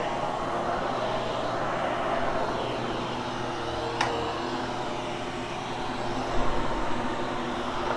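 Hoover Hushtone upright vacuum cleaner running steadily, with a sharp click about four seconds in and a few low knocks near the end.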